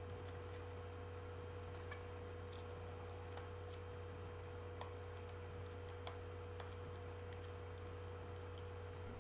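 Scattered small clicks and taps from hands working at a gift-wrapped package, growing more frequent and louder about halfway through, over a steady low electrical hum.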